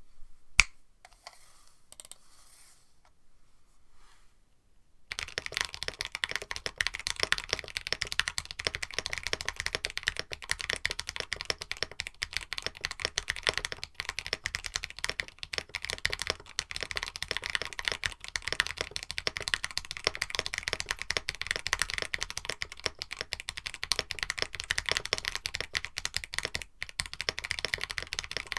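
Continuous fast typing on a KBD67 Lite mechanical keyboard with an FR4 plate and lightly lubed AEBoards Raeds v2 long-pole switches: mostly thocky, with a thin clack. A single sharp click comes just under a second in, and the steady typing starts about five seconds in.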